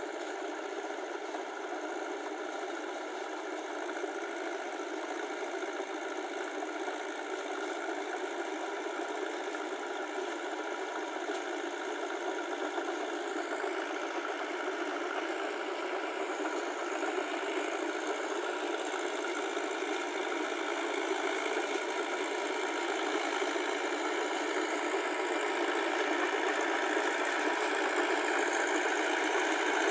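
Massey Ferguson tractor's diesel engine running steadily under load while working a flooded paddy field, growing gradually louder as the tractor comes closer.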